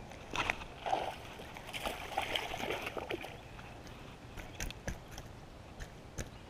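A small fish hooked on a jig splashing at the water's surface as it is reeled in and swung out of the water, followed by a scatter of light clicks and taps.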